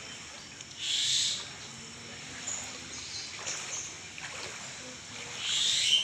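Two short splashes of shallow floodwater, about a second in and near the end, as a swamphen wades through it, with faint bird calls in the background.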